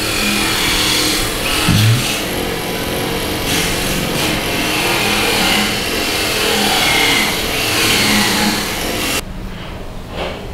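A motor engine running, its pitch rising and falling, over a steady hiss; much of the hiss drops away abruptly near the end.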